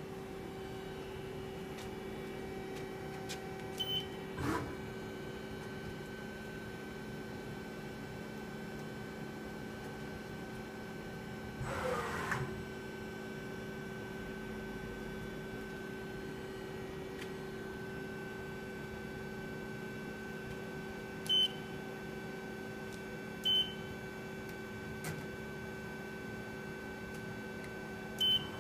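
Hyundai Wia L150A CNC lathe powered up and standing idle, giving a steady electrical and mechanical hum of several constant tones. Short, sharp high beeps cut in four times, one early and three louder ones in the second half.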